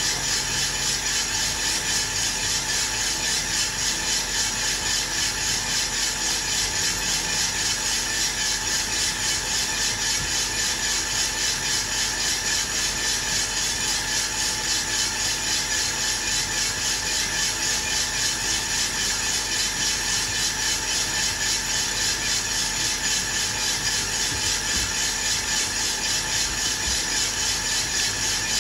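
Aillio Bullet R1 V2 drum coffee roaster running mid-roast: a batch of coffee beans tumbling in the rotating drum with a steady hiss from the fan, pulsing evenly. The beans are still early in the roast, around 145 °C and well short of first crack.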